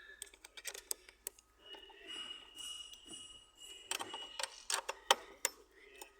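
Metal spanner clicking and clinking against the battery terminal and its nut while it is being loosened: irregular sharp metallic ticks and knocks with handling noise between them.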